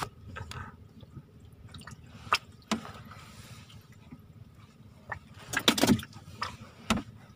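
Small splashes and drips of water with a few sharp knocks, the loudest splashing about six seconds in.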